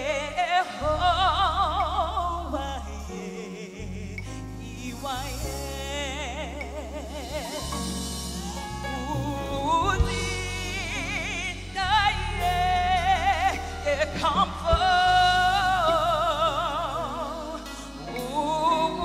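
Gospel lead vocal without words: long held notes with heavy vibrato and sliding runs, over a live band's steady bass notes.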